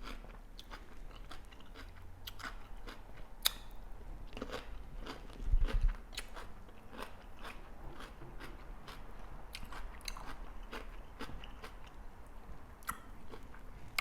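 Close-miked eating of tilapia fish: chewing and biting with many small sharp clicks and crunches. There is a heavier low thump about five and a half seconds in.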